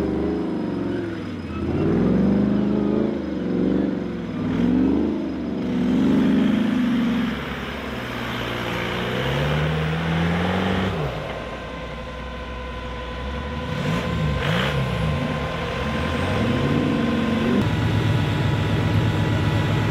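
Off-road competition buggy's engine revving hard, its pitch rising and falling again and again as it claws up a steep dirt slope, then settling into a steady high-speed run near the end.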